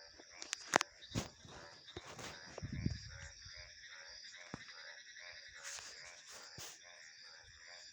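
Night ambience of frogs calling in quick repeated pulses over a steady high trill of crickets and insects. Several sharp clicks come in the first second or so, and a brief low rumble comes about three seconds in; these are the loudest sounds.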